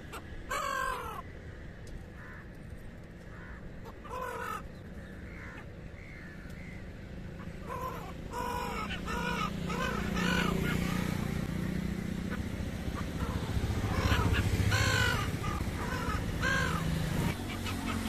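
Black-headed gulls giving harsh, raucous calls: a few single calls at first, then a flock squabbling with many overlapping calls from about halfway. A low rumble runs underneath and grows louder in the second half.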